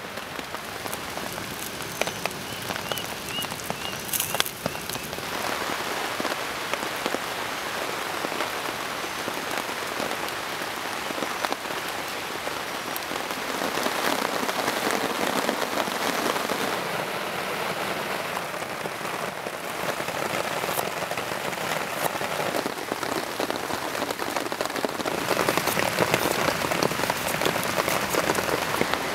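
Heavy rain falling steadily on a tarp shelter and forest leaves: a dense, even hiss with scattered drip ticks. It grows louder about five seconds in.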